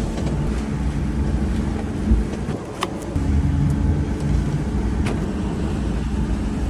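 A sportfishing boat's engines running steadily underway, a low drone mixed with the rush of hull and wake. There is a brief thump about two seconds in, and a couple of faint clicks.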